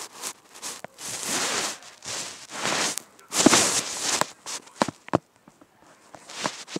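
Rustling and handling noise: three swishing bursts of about a second each, then scattered sharp clicks near the end.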